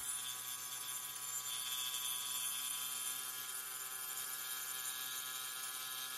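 Angle grinder with a diamond cutting disc running steadily while cutting a concrete slab: a steady motor whine with many overtones over the hiss of the cut.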